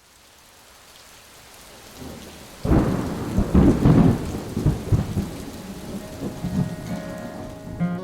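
Steady rain falling, fading in, with a sudden clap of thunder about two and a half seconds in that rumbles on and slowly dies away.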